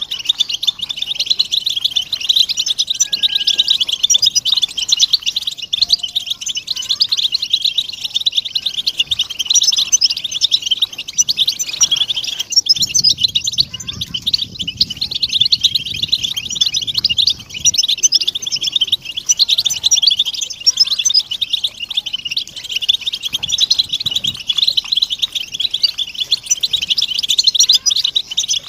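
A flock of European goldfinches twittering together in a dense, unbroken, high-pitched chatter of calls. These are the mating and readiness calls played to stimulate a silent male goldfinch into song.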